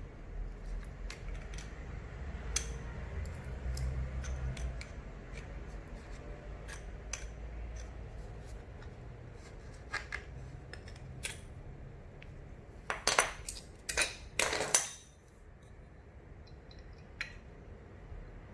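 Scattered small metal clicks and clinks from a screw being tightened into a wall anchor to mount a magnetic door stopper. About two-thirds through comes a quick run of louder metallic clinks.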